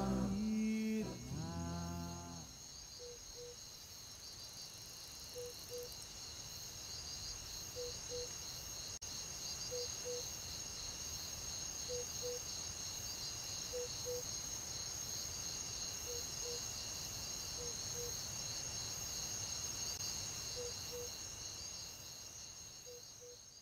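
A steady chorus of crickets and other insects in shrill, pulsing trills, with a soft low two-note call repeating about every two seconds. The tail of a sung chant dies away in the first two seconds, and the chorus fades out near the end.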